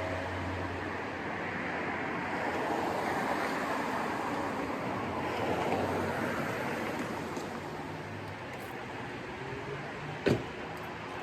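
Car on the move: steady road and engine noise, with a single sharp click about ten seconds in.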